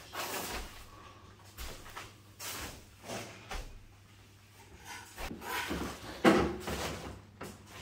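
Footsteps crinkling and rustling on plastic dust sheets laid over the floor, in an irregular walking rhythm, with one louder thump a little past six seconds in.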